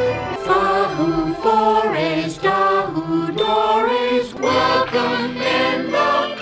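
Choir singing held notes over orchestral backing: the cartoon's opening theme music.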